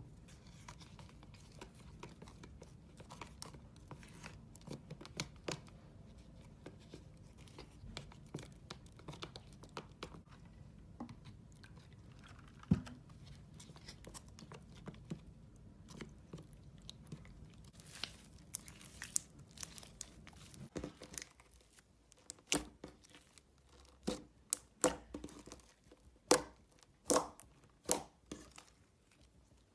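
Slime being squeezed and worked by hand, with a run of soft crackles. In the last third come sharper, louder pops and clicks, as air pockets burst.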